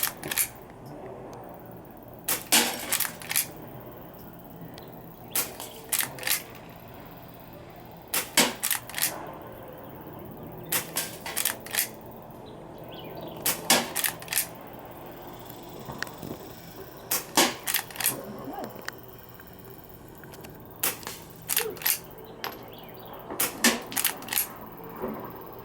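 Henry .22 rifle firing Colibri primer-only rounds about every three seconds. Each shot is a short cluster of sharp clicks and snaps rather than a bang, almost silent apart from the bullet's hit on the target.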